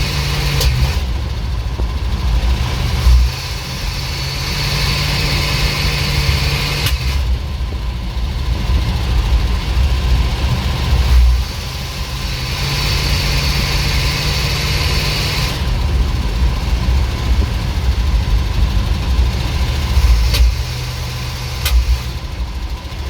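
ZIL truck's carburetted petrol engine running, revved up and let back down to idle several times, with a few sharp pops of backfiring: the sign of ignition and carburettor still out of tune.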